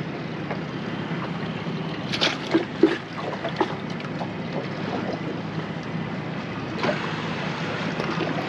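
Small boat on open water: steady wind and water noise, with a few short knocks about two to three seconds in.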